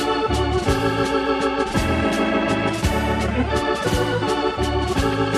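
Electric organ, Hammond-type, playing a brisk tune of short repeated chords over a line of low bass notes, typical of a ballpark organist.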